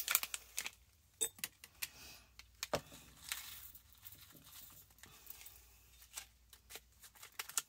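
Faint, irregular clicks and light rattling of sequins and small beads being stirred and picked through in a small bowl.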